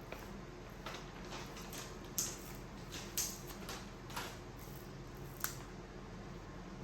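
A baby eating: scattered short smacks and clicks, the sharpest about two, three, four and five and a half seconds in, over a steady low hum.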